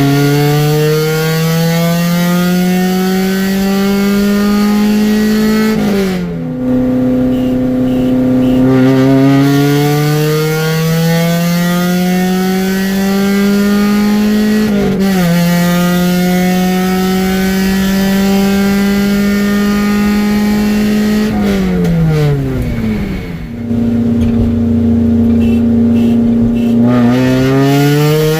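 1996 Honda Prelude's four-cylinder engine accelerating hard through the gears. The revs climb steadily in each gear and drop sharply at three upshifts: about six seconds in, about halfway, and about five seconds from the end.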